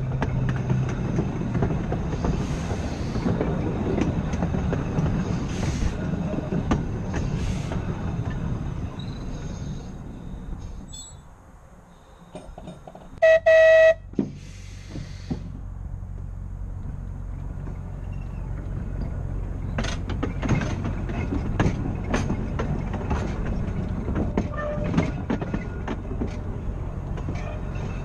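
Blackpool Boat tram 606 rolling on the rails with scattered wheel clicks over joints. The running noise fades to a lull about eleven seconds in, then come two short loud blasts of the tram's horn. After the blasts, rolling noise and clicks resume over a steady low hum.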